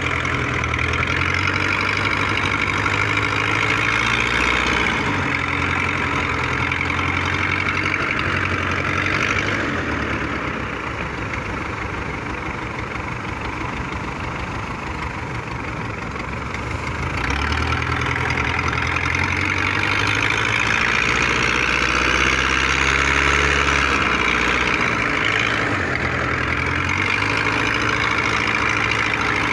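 Fishing boat's open inboard engine running close by with a steady drone. It eases off for several seconds around the middle, then picks up again.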